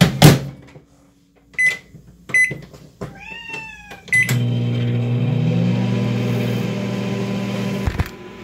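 Microwave oven being started: a thump, three short keypad beeps, then the oven running with a steady hum for about four seconds before it cuts off near the end. A tabby cat meows once between the beeps.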